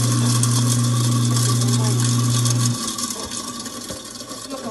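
Kitchen sink garbage disposal motor running with a loud steady hum, cutting off a little under three seconds in; a quieter rushing noise carries on after it.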